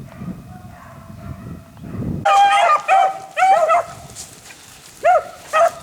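A pack of beagles baying as they run a rabbit's scent trail. The bays are faint at first, then loud, arching calls break out about two seconds in, in several runs of short bawls.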